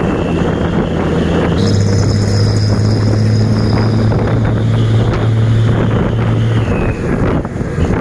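Wind buffeting the microphone and road noise while riding a motorcycle behind a dump truck, over a steady engine hum that grows louder about two seconds in and drops back near seven seconds.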